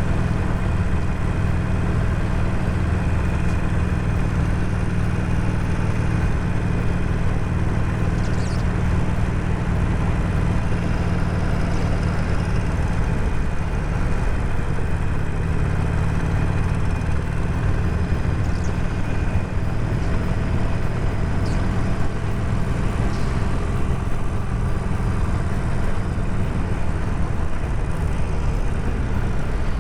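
Harley-Davidson Sportster 48's air-cooled V-twin engine running at a steady cruise while riding, heard from the rider's position.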